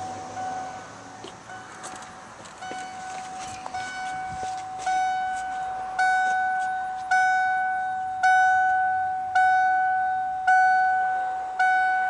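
1993 Ford F-150's dashboard warning chime, a bright ding repeating about once a second, growing louder about five seconds in: the reminder that sounds with the driver's door open.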